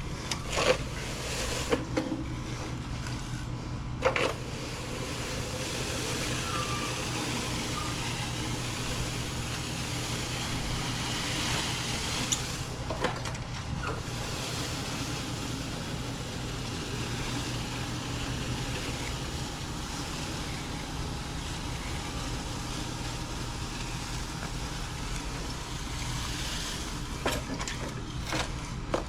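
A motor vehicle's engine running steadily, with a few sharp knocks in the first few seconds and another about thirteen seconds in.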